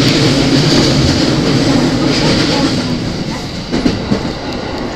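Running noise heard inside a JR East E231-series commuter train car moving at speed: a loud, steady rumble of wheels on rail that eases a little after about three seconds, with a few sharp rail-joint clicks near the end.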